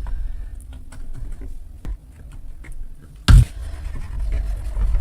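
Close-miked crushing of dry, crumbly material: scattered small crackles and crunches over a low rumble, with one loud sharp crunch a little past three seconds in.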